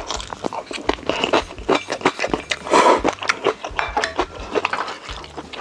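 Close-miked eating sounds: rapid clicks and clinks of utensils against dishes mixed with chewing, and one louder, noisier burst about halfway through.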